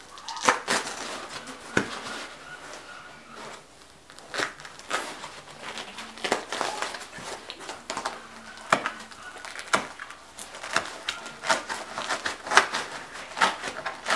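Glued layers of foam in a case insert being pulled and torn apart by hand, with irregular crackles and rubbing as the weak glue seam gives way.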